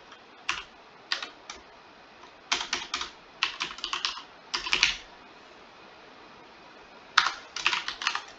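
Computer keyboard typing in short, irregular bursts of keystrokes. A pause of about two seconds comes before a final flurry of keys near the end.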